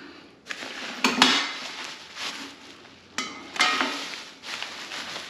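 Stainless steel parts of a gravity water filter clinking and knocking against the steel canister as they are unpacked: a few sharp metallic knocks, some of them ringing briefly, over the rustle of plastic wrapping.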